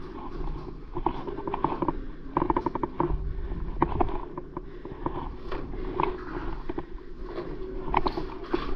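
Irregular knocks and clicks, one or two a second with a few quick clusters, over a low steady rumble: footsteps and gear of a player moving on foot.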